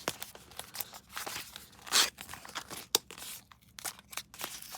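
Product packaging being opened by hand: irregular rustling, tearing and crackling with sharp clicks, loudest about two seconds in and again just before three seconds.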